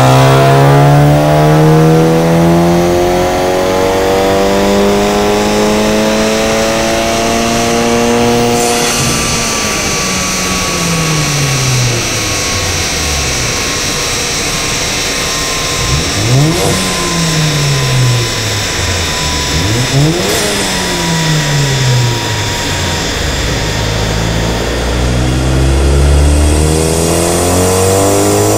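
Volkswagen Golf VII GTI's turbocharged 2.0-litre four-cylinder breathing through an Armytrix full exhaust, run on a chassis dyno. The engine note climbs steadily under load for about eight seconds, then drops and winds down over a slowly falling whine. Two quick rev rises follow, each with a sharp pop, then low rumble before the revs climb again near the end.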